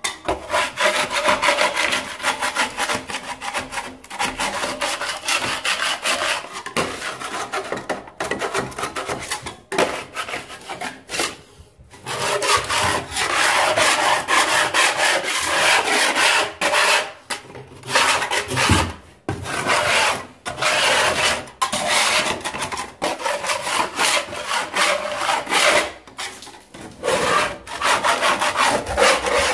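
Hand scraper scraping old whitewash and plaster off a wall in quick, repeated rasping strokes, with a couple of short pauses.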